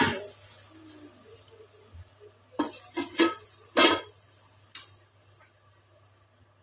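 A sharp clank and a short sizzle of spice paste in hot oil in a steel kadai, then a steel plate set over the kadai as a lid, clanking against the rim four or five times with a brief metallic ring. After that the covered pan falls nearly quiet.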